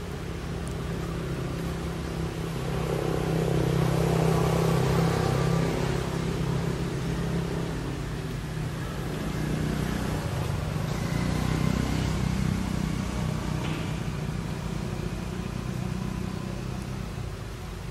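A motor vehicle's engine hum, swelling louder about three seconds in and again around ten seconds, its pitch rising the second time.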